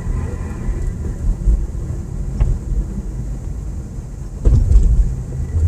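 Car driving on the road: steady low road and engine rumble, with a sudden loud thump about four and a half seconds in as the car goes over a bump. The car's front struts are worn; the owner blames the right strut for its bumping and rattling.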